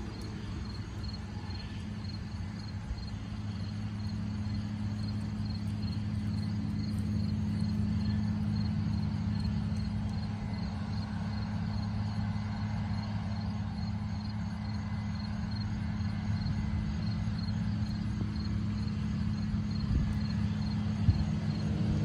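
Combine harvester running steadily with its unloading auger engaged, heard from a distance as a constant low engine drone. A faint, regular high ticking runs along with it.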